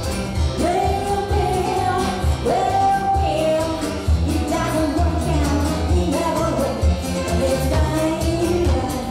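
A woman singing a country song with a band: a Roland stage piano and a steady beat in the bass.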